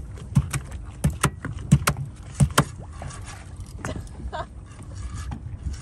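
Small fishing boat on open water: a steady low rumble with irregular knocks and slaps, thick in the first few seconds and thinning out later.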